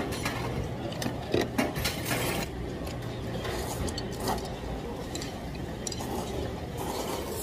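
Chopsticks clinking against ceramic bowls and kalguksu noodles being slurped, a few sharp clinks and short slurps over a steady low background hum.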